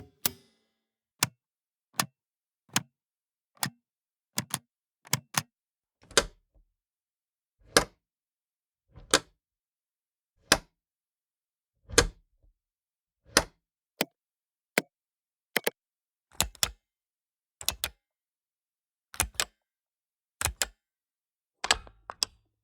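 Pushbutton switches being pressed: a series of sharp clicks, many in close pairs as a button goes down and comes back up, spaced about a second apart with silence between.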